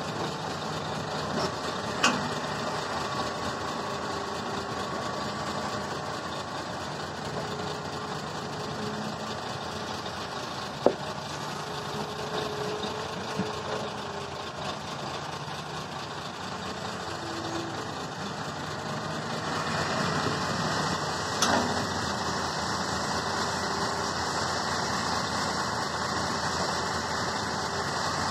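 Hitachi ZX350-5G hydraulic excavator's diesel engine running steadily while it works. It grows a little louder from about two-thirds of the way in, and a few sharp knocks stand out.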